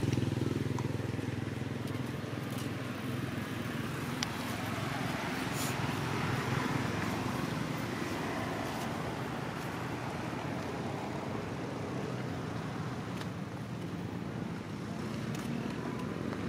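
Distant motor traffic: a steady low rumble that eases a little in the first couple of seconds.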